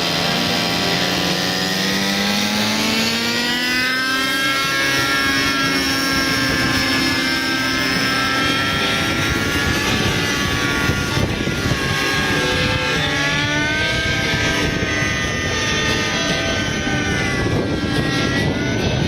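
Raptor 50 Titan radio-controlled nitro helicopter running in flight, its engine and rotor note climbing in pitch over the first four seconds, then wavering up and down.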